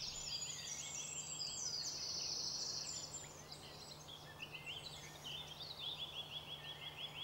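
Several songbirds singing together, a dense mix of overlapping high chirps and trills. Near the end one bird gives a quick run of repeated notes, about five a second.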